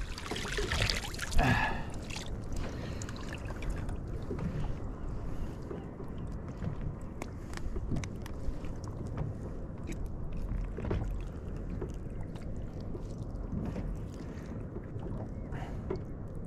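Scattered light knocks and clicks on a plastic fishing kayak as a just-landed lingcod is handled aboard, with one sharper knock about a second and a half in. Under them runs a low steady rumble of water against the hull.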